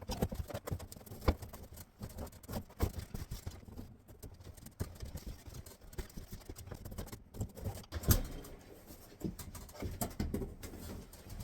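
Irregular knocks, taps and clatter from hands-on work fitting a plywood panel into a camper trailer, with a few sharper knocks about a second in and again near eight seconds.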